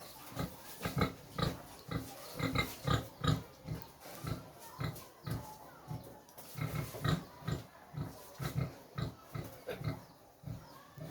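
Pig grunting in a steady rhythm of short low grunts, about two to three a second, the contented grunting of a happy pig.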